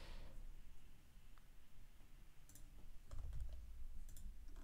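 A few scattered, faint clicks of computer keys being pressed, over a steady low hum.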